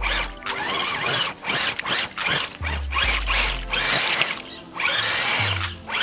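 Background music with a repeating, stepping-down bass line, over the whine of a radio-controlled scale crawler's electric motor revving up and down as it works through mud.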